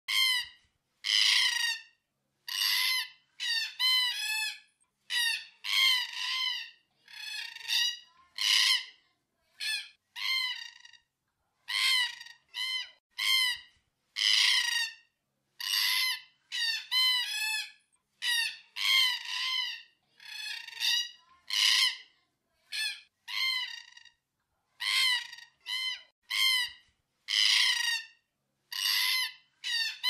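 Black cockatoos calling over and over, a call about every second, each one under a second long and some in quick pairs.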